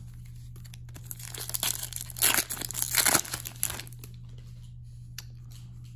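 Trading card pack wrapper crinkling and tearing as it is opened by hand, a crackly rustle lasting about three seconds and loudest in the middle.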